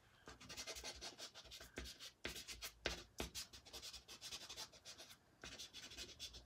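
Soft pastel scratching and rubbing across pastel paper in quick, repeated short strokes, with a brief pause about five seconds in.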